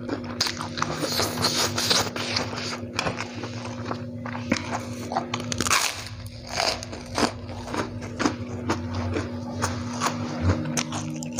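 Close-up eating sounds: chewing a mouthful of fried instant noodles, then repeated crunchy bites and chewing of a crispy white kerupuk cracker.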